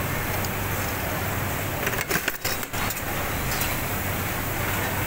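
Steady factory-floor machinery noise: an even hum with a constant low drone. About two seconds in it is broken briefly by a few clicks and short dips.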